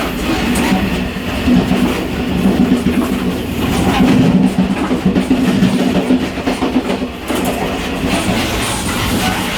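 Running noise of a moving local express train, heard inside the gangway connection between two coupled train sets: a loud, steady rumble with the clickety-clack of wheels over the rails and frequent small knocks. It dips briefly about seven seconds in.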